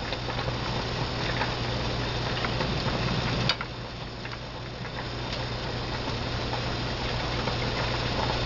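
Steady low background hum with a faint hiss, and one sharp click about three and a half seconds in.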